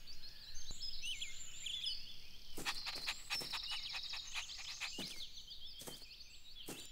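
Quiet outdoor ambience of small birds chirping, with a rapid trill from about two and a half to four and a half seconds in and a few short clicks.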